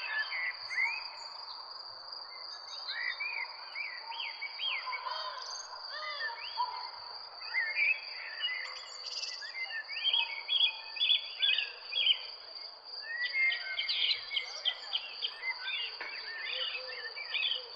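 Several garden birds chirping and singing, short rising-and-falling notes overlapping one another, over a continuous steady high-pitched tone.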